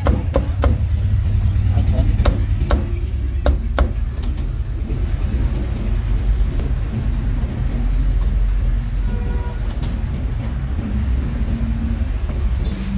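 Cleaver chopping roast pork on a wooden chopping block: a run of sharp knocks in the first four seconds, then the chopping stops. Under it runs a steady low rumble of street traffic.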